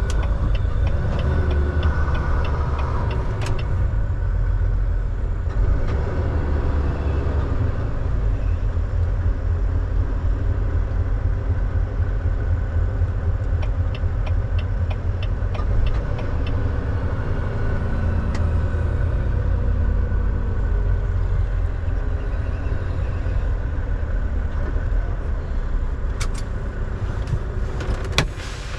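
Volvo semi-truck's engine running with road noise, heard inside the cab as a steady low rumble. Short runs of light, evenly spaced ticks come near the start and again about halfway through.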